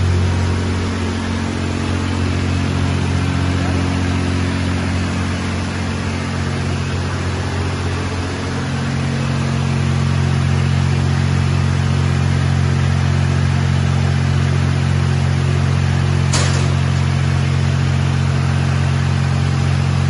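MAXIA MX-LI10T industrial immersion vegetable washer running: a steady low machine hum over a constant rush of water. The hum's tone shifts about eight seconds in.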